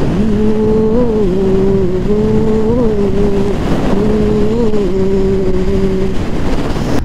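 Bajaj Pulsar NS200's single-cylinder engine running at a steady cruise, with wind and road rush. The note lifts slightly now and then and drops out briefly twice, a little past halfway and near the end.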